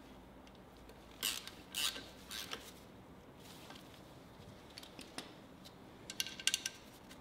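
Faint metallic clinks and scrapes of hand tools and small metal parts being handled, a few separate ones in the first seconds, then a quick run of clicks about six seconds in.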